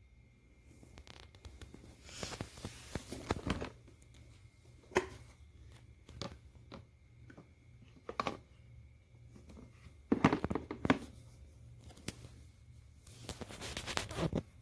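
Handling noises: scattered clicks, taps and crinkly plastic rustles, with a faint steady hum underneath.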